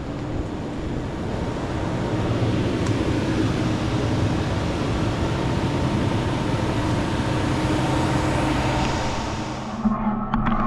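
Machine-shop machinery running steadily with a constant hum and hiss, cut off abruptly near the end and followed by a few sharp clicks.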